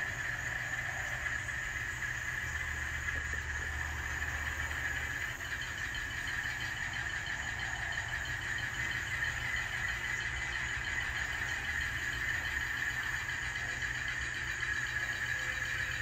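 N scale Alco C420 model diesel with an ESU LokSound decoder, its speaker playing a steady diesel engine running sound as the locomotive creeps along, with a constant high-pitched whine over it.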